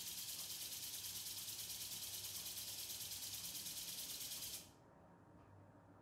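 A steady high-pitched hiss with a fast, even flutter, cutting off abruptly about four and a half seconds in, leaving only a faint low background.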